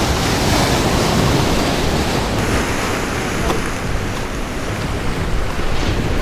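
Ocean surf and rushing water, a steady loud wash, with wind buffeting the microphone.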